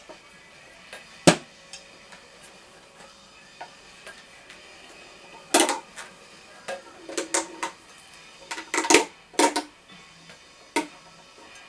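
Scattered sharp knocks and clicks as the bat and its overgrip are handled. There is one loud knock about a second in, then two bursts of clatter in the middle and later part.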